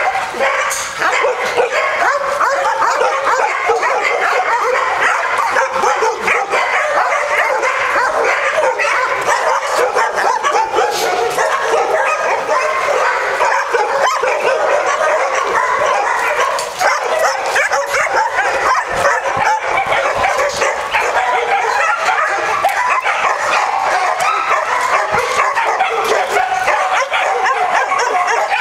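Many shelter dogs in outdoor kennel runs barking and yelping at once, a dense overlapping chorus that goes on without a break.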